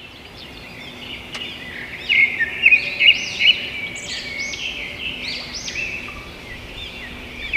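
Birds chirping: a run of short, repeated arching calls, loudest about two to three and a half seconds in, then fading, over a low background hiss.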